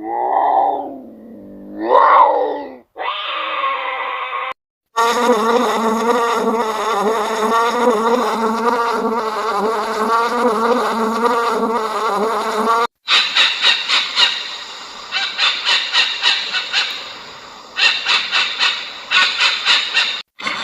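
A run of animal-sound clips: a short pitched animal call, then an insect buzzing for about eight seconds with a wavering pitch, then a series of rapid rhythmic pulses.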